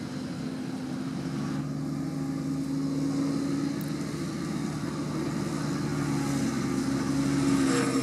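Deutz-Fahr 6190 tractor's diesel engine running steadily under load, pulling a loaded silage trailer, growing a little louder near the end as it comes closer.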